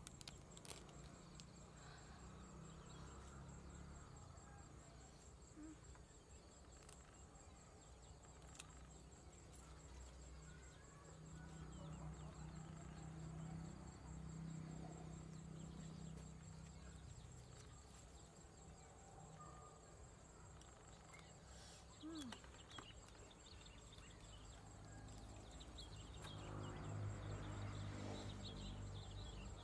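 Faint rural ambience: an insect trilling steadily at a high pitch, with soft rustles and small clicks of leafy vegetables being handled.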